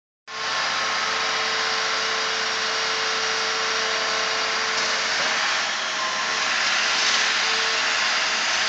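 John Deere 350G tracked excavator running, a steady engine noise with a faint hydraulic whine as it works.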